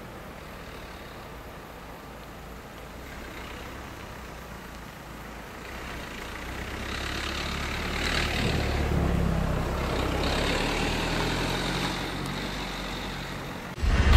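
A motor vehicle passing: a low engine hum with a higher hiss swells from about five seconds in, is loudest around the middle, then eases off. Loud music cuts in abruptly at the very end.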